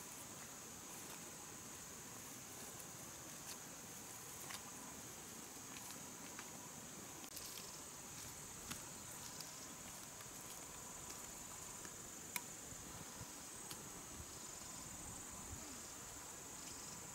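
Steady high-pitched drone of insects, with a few faint scattered clicks, the sharpest about twelve seconds in.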